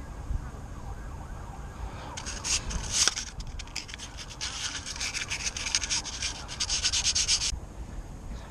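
Sandpaper rubbed back and forth on rusty metal to clean off rust, in quick even scraping strokes that start about two seconds in and stop about a second before the end.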